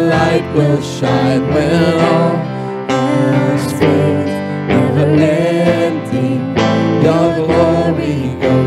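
Live church worship band playing a contemporary worship song, with a singer's voice carried over the instruments.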